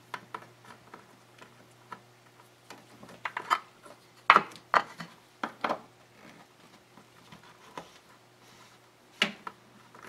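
PC power and data cables being handled and routed behind a computer case's motherboard tray: rubbing of cable jackets with scattered clicks and knocks of plastic connectors against the case panel, the loudest cluster about four to six seconds in and another about nine seconds in.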